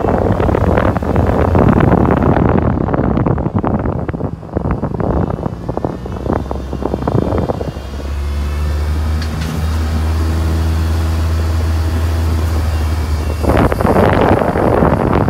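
A car driving slowly, wind buffeting the microphone through an open window. About halfway through the wind drops and a steady low engine hum takes over, then the wind buffeting returns near the end.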